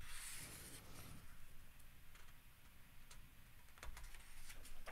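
Faint handling of a paperback manga volume, with a few light clicks near the end as fingers shift on the paper pages.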